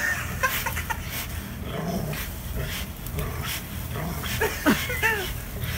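A dog giving short whimpering yips while it leaps and tugs at a leafy tree branch, the branch rustling with each pull.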